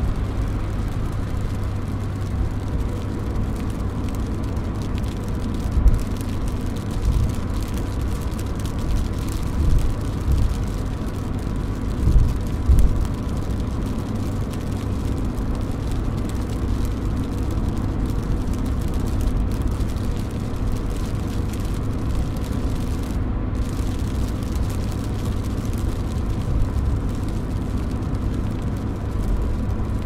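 Rain falling on a car, heard from inside the cabin: a steady low rumble under a fine patter, with a few louder low thumps in the first half.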